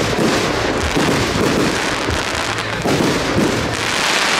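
Fireworks display: aerial shells bursting overhead in a dense, continuous crackle, with a few low thuds mixed in.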